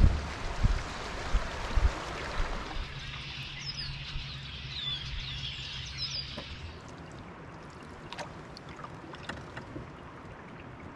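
Canoe being paddled on a river: water splashing and rushing with a few thumps in the first couple of seconds, then quieter water with occasional light knocks. A bird chirps several times in the middle.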